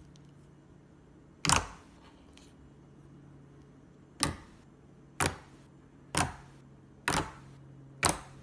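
Slime being handled, giving six sharp clicking pops about a second apart.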